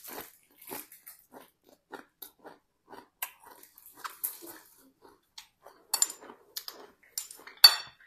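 Close-up chewing of crisp lettuce: irregular wet crunches and bites, close to a clip-on microphone. Near the end a sharp clink of a spoon against the plate.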